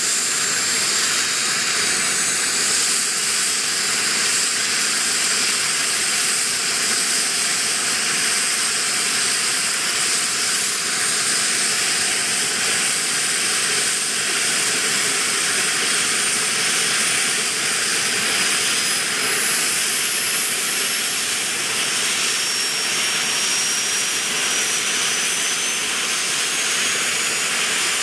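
Small model turbine engine of a radio-controlled Lama SA 315B helicopter running with a steady hiss and a high whine that rises slowly in pitch as the engine spools up and the rotors come up to speed.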